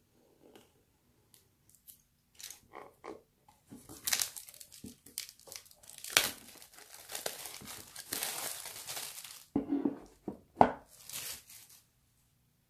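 Packaging of a boxed K-pop album being torn and crinkled open by hand, a long rough tearing stretch in the middle, followed by a couple of knocks as the package is handled.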